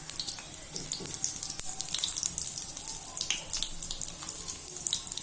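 Vegetable cutlets shallow-frying in hot oil on a tawa, sizzling steadily with many small crackles and pops.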